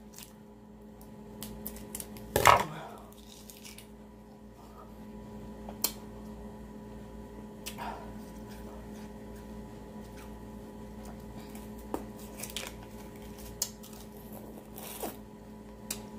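Scissors snipping open a plastic freezer-pop sleeve, with one louder sharp sound about two and a half seconds in. Scattered small clicks and mouth sounds follow as the frozen pop is sucked and eaten, over a steady hum.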